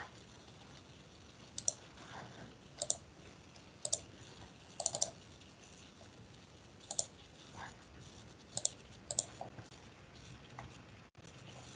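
Computer mouse clicking: scattered sharp clicks, several in quick pairs, over a quiet background.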